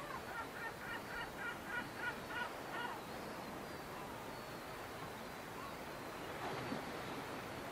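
A gull calling: a run of about a dozen short, harsh notes, about four a second, which stops about three seconds in. After it, only a steady background hiss remains.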